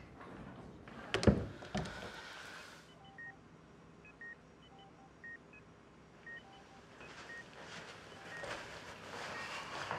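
A sharp knock and brief clatter about a second in, then a hospital patient monitor beeping steadily, about once a second.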